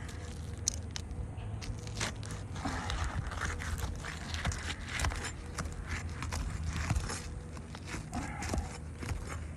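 Laminated asphalt roof shingles being pried apart, with irregular crackling, ticking and scraping as the adhesive seal between them breaks. A steady low hum runs underneath.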